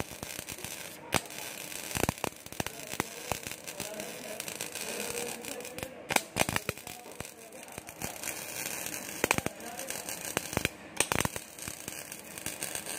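GMAW (MIG) welding arc on a 6-inch schedule 40 black iron pipe, a continuous crackle and sizzle with many sharp pops of spatter, as the root pass is run and fuses through.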